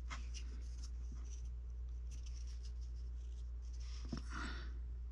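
Fingers pressing and smoothing oil-based Monster Clay onto a thin wooden rifle-stock armature: soft scratchy rubbing with small clicks, and a longer rub about four seconds in. A steady low hum runs underneath.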